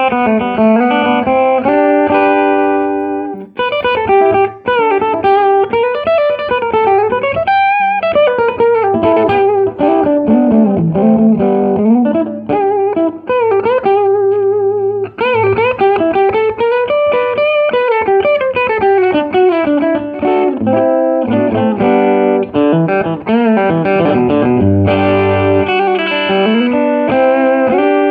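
Electric guitar, a swamp ash Telecaster with single-coil pickups, played through a Louis Electric tweed-style valve amp. Held chords at the start give way to single-note lead lines with string bends and slides, and strummed chords return near the end.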